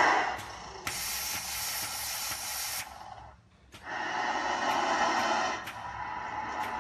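Animatronic snake's hissing sound effect: a long hiss of about two seconds, a brief gap, then a rougher, lower hiss-like sound.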